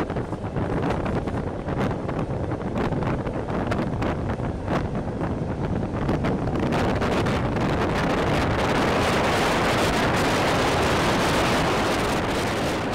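Wind rushing over the microphone together with the running noise of a passenger train, heard from an open carriage window at speed. Sharp irregular clicks come through in the first half, then the rush grows fuller and steadier from about halfway and eases off near the end.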